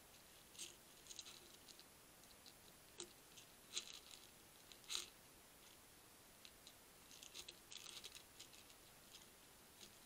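European hedgehog crunching dry kitten kibble from a feeding tray: irregular clusters of faint, crisp crunches and clicks, the loudest about four and five seconds in, over a steady hiss.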